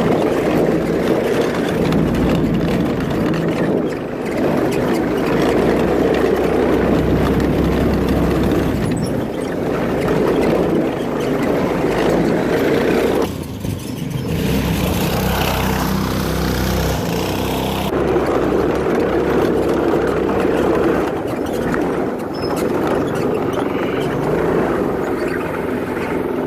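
Go-kart's small gasoline engine running under way, its speed rising and falling, with a brief drop in level about halfway through.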